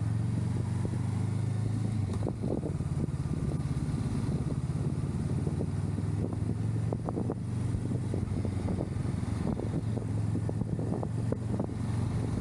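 Honda Rebel 500's parallel-twin engine running steadily at low cruising revs, heard from the rider's seat, its note dipping briefly about two seconds in. A few brief knocks cut through.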